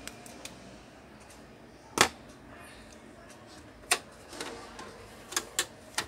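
Scattered sharp clicks of pliers working a thin electrical wire, the loudest a single snap about two seconds in and a few smaller ticks toward the end.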